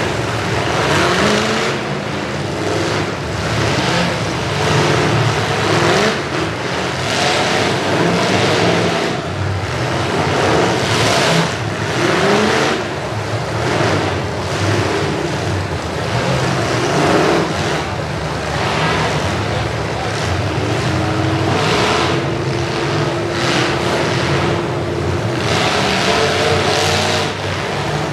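Several demolition derby car engines running and revving hard in repeated surges, their pitch rising and falling, with one engine held at a steady rev for a few seconds near the end.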